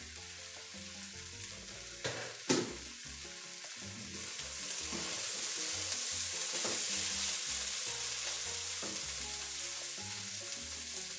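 Chicken and vegetables sizzling in a nonstick wok as they are stirred with a spatula, the sizzle growing louder about four seconds in. Two sharp knocks come a couple of seconds in.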